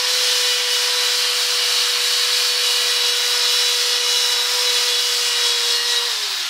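Corded electric drill spinning a P500 sandpaper disc against a plastic headlight lens, sanding off the yellowed layer: a steady high whine over a loud gritty hiss. Near the end the whine starts to drop in pitch as the drill winds down.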